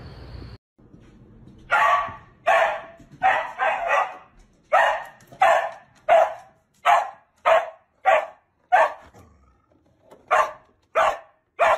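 A dog barking repeatedly in short, sharp barks, about one and a half a second, with a brief pause about nine seconds in.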